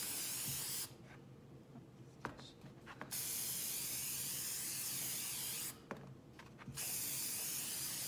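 Aerosol spray can of matte sealer spraying in three bursts of even hiss: a short one ending just under a second in, a longer one of about two and a half seconds in the middle, and another starting near the end.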